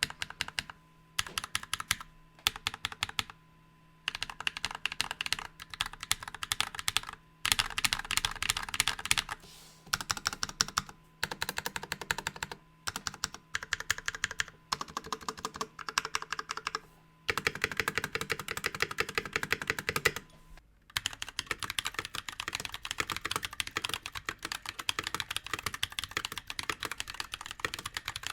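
Typing on a NovelKeys NK65 Entry Edition custom mechanical keyboard with a polycarbonate case, lubed Glorious Panda tactile switches and double-shot keycaps. Bursts of rapid keystroke clacks come with short pauses between them, then unbroken typing over the last several seconds.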